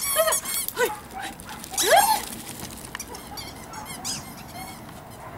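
Small dog giving short, high-pitched excited yips and whines while chasing in play, with a louder rising yelp about two seconds in.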